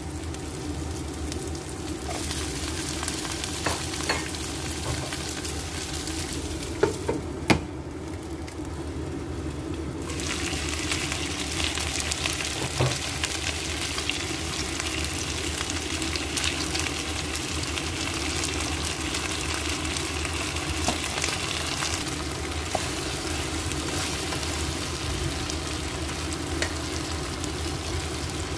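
Shallots and then chicken pieces sizzling in oil in a nonstick pan, a steady frying hiss that thins out briefly about a quarter of the way in. A few sharp knocks sound over it.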